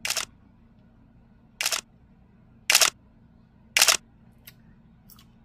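Camera shutter sound effect, snapping four times: once right at the start, then three more about a second apart from near two seconds in. Each is a short, sharp burst.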